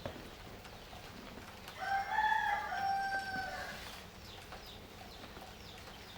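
A rooster crowing once, a single call of about two seconds that rises and then holds level, over faint small crumbling clicks.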